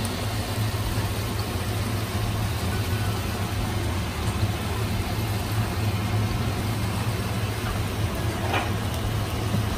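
Steady low hum under an even hiss of a tomato and onion mixture sizzling gently in a saucepan on an electric stove.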